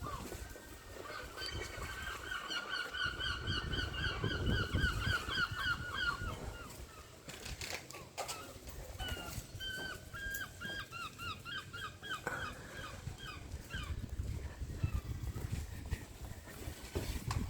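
A large bird calling in two long runs of rapid repeated calls, about four or five a second, the first lasting about five seconds and the second, starting about nine seconds in, about three seconds.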